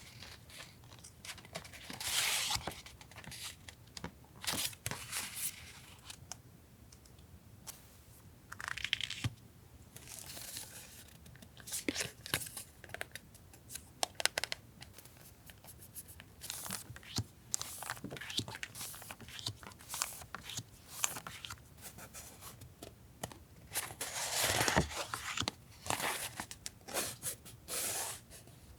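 Paper stationery and its packaging handled close to the microphone: irregular rustling, crinkling and tearing in short bursts, with small clicks between, loudest about two seconds in and again near the end.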